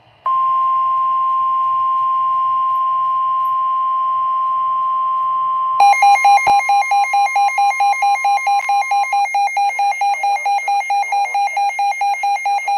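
NOAA Weather Radio warning alarm tone announcing a severe thunderstorm warning: a loud steady single-pitch tone for about five and a half seconds, then a rapid pulsing beep, about four beeps a second, takes over. The beeping is the alert alarm of a weather radio receiver set off by the warning.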